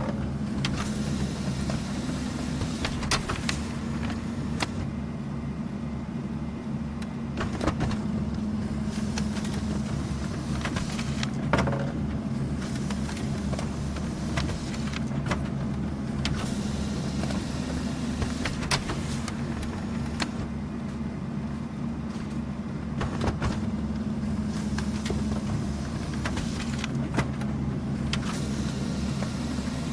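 Office printer running continuously as paper feeds through it: a steady motor hum with a sharp click roughly every four seconds.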